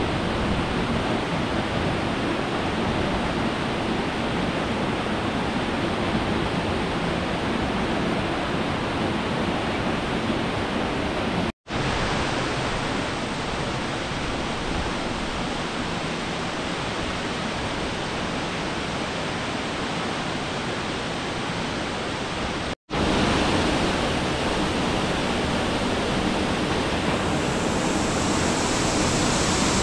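A steady rushing noise with no distinct events, broken twice by brief silent cuts about 12 and 23 seconds in, growing a little brighter near the end.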